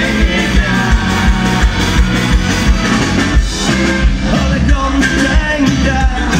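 Folk-punk band playing live at full volume, heard from inside the crowd: a fast, steady drum beat under bass, electric guitars and fiddle.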